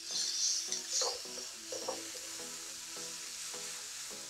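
Shredded cabbage and grated carrot sizzling in a hot frying pan while a spatula stirs them. The sizzle is loudest in the first second, then settles to a steady lower hiss with a couple of short scrapes of the spatula. Soft background music plays underneath.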